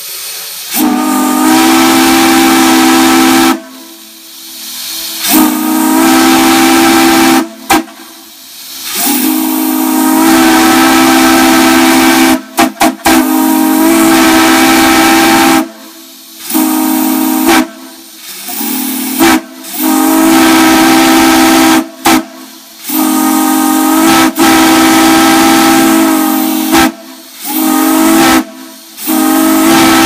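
Steam whistle on a whistle-blow manifold sounding in repeated blasts of one to three seconds with short gaps, a steady low tone over hissing steam.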